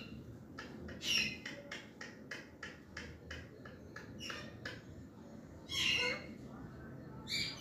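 Alexandrine parakeets giving short harsh squawks, loudest about a second in and around six seconds, with a run of quick sharp clicks between them as they bite into watermelon and seed.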